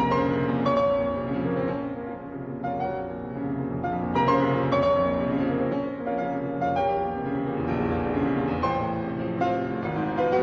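Background piano music, a run of single struck notes and chords.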